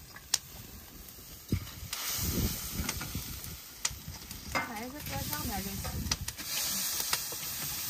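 Fish stewing in beer in a large wok hisses and sizzles while napa cabbage is laid on top from a steel bowl. A few sharp metal clinks come through, and a short voice is heard about five seconds in.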